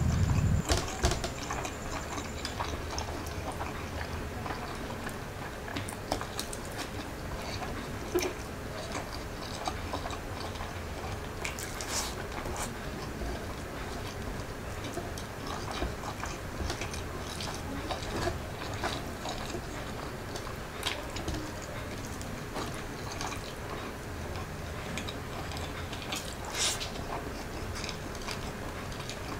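Close-miked eating sounds: chewing with many small wet mouth clicks and smacks as fried rice and siomai are eaten by hand. A low rumble cuts off within the first second.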